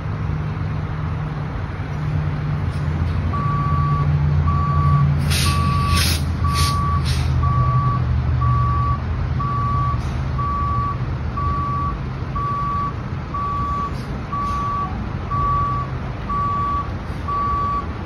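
Tow truck's engine running with a steady low rumble while its backup alarm beeps at one pitch about once a second, starting a few seconds in. A few sharp metallic clatters come around five to seven seconds in.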